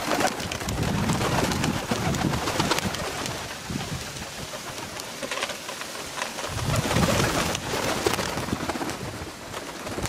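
Pigeons cooing in low, repeated bursts, louder in the first few seconds and again in the second half. Scattered wing flaps and scuffles come from pigeons flying up onto a wooden bird table.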